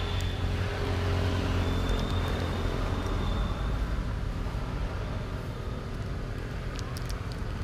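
Motor vehicle engine running nearby, a steady low hum that is loudest in the first two seconds and then eases off. A thin, steady high tone sounds over it during the first few seconds.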